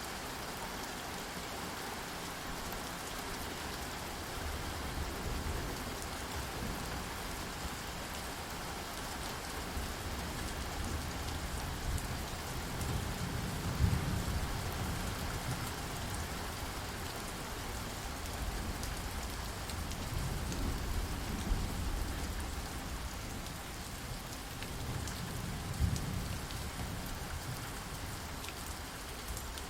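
Steady rain falling, with deep low rumbles swelling up several times, each peaking briefly.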